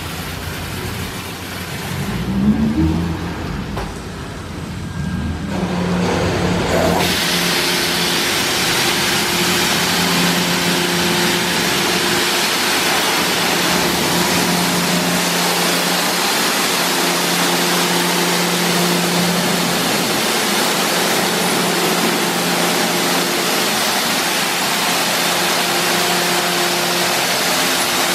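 Ceccato Aquarama Stargate S7 rollover car wash in its high-pressure wash stage. After a quieter stretch of machine whirring with a brief rising whine, the water jets open about seven seconds in: a loud, steady hiss of spray on the car over an even pump hum.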